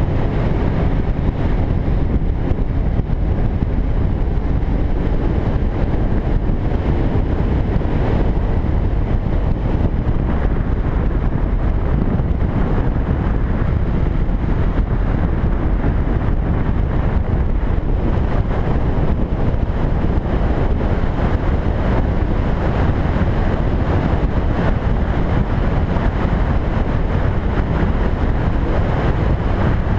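Steady wind noise buffeting the microphone of a camera mounted on a cruiser motorcycle riding at road speed, with the motorcycle's engine running underneath.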